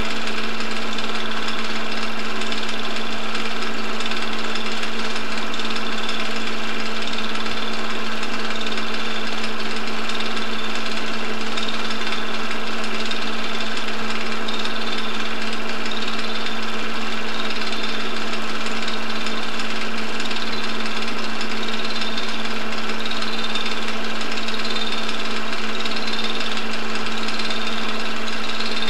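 Film projector running: a steady mechanical hum and clatter that does not change.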